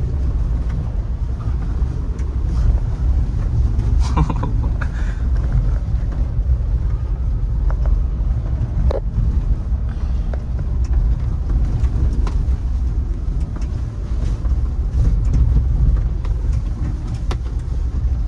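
Mahindra Thar 4x4 on the move: a steady low engine and road rumble, with a brief clatter of knocks about four seconds in and a single sharp knock about nine seconds in.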